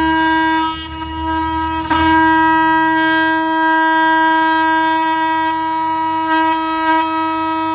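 Oscillating multitool cutting a notch in maple stair nosing, a loud steady buzz at one pitch. It dips briefly about a second in and comes back up near two seconds.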